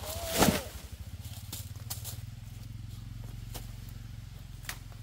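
A cut banana plant falls and crashes down through its leaves about half a second in, followed by a few light snaps and rustles. A steady low motor hum runs underneath.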